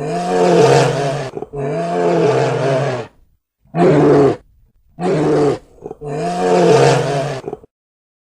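Bear roaring: five separate roars of about a second each with short gaps between.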